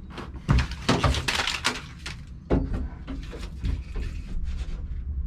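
Knocks, bumps and rustling from handling and pressing self-adhesive sound-deadening mat onto the bare metal panels inside a van. There is a cluster of sharp knocks about a second in and another about two and a half seconds in.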